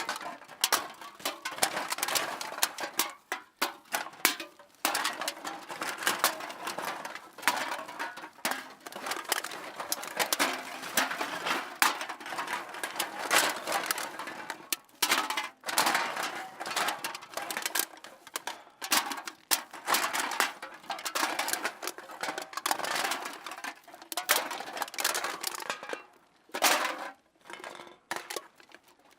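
Metal cans being dropped and jostled into a bag: continuous clinking and rattling of cans knocking against each other, with brief pauses.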